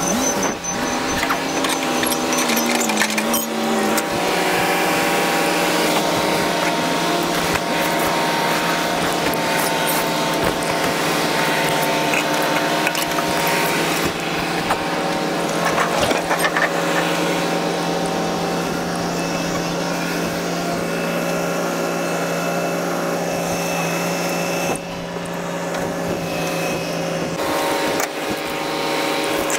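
A machine running steadily, with a constant hum and noise over it; the pitch steps down during the first few seconds, and the sound lightens somewhat near the end.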